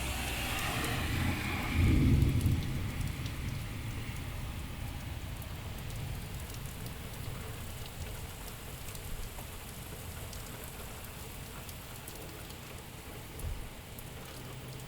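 Heavy rain falling steadily. About two seconds in comes a brief low rumble, the loudest moment.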